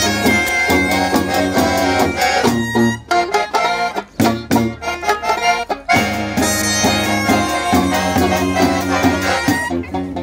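Small acoustic street band playing upbeat music: a clarinet lead over accordion, banjo, tuba bass and snare drum. The band stops short a few times in the middle before carrying on.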